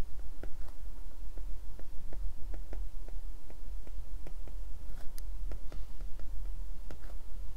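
Stylus tip tapping and clicking on a tablet's glass screen during handwriting: light, irregular clicks, several a second, over a steady low hum.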